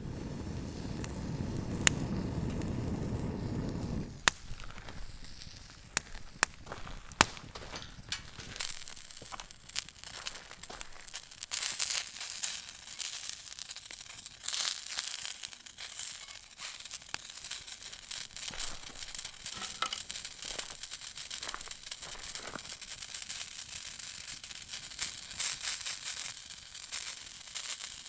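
Campfire of burning firewood crackling, with scattered sharp pops. A louder low rumbling noise runs underneath for about the first four seconds, then stops.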